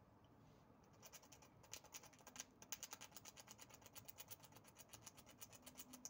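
Eurasian red squirrel gnawing and chewing its food: a fast, even run of faint crunching clicks, about ten a second, starting about a second in.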